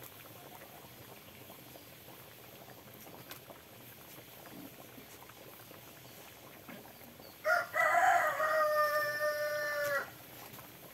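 A rooster crows once, starting about seven and a half seconds in: a rough rising onset, then a long held call of about two and a half seconds that cuts off. Before it there is only faint, steady background.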